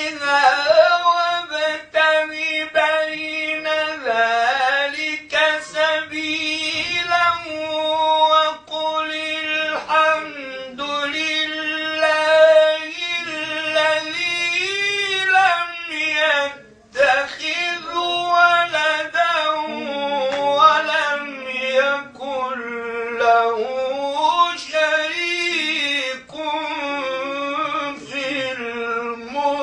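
A solo male voice chanting Islamic religious recitation in a melismatic Arabic style, with long held notes and winding ornamented turns. It is sung unaccompanied and dry, without added echo, and breaks off briefly about halfway through.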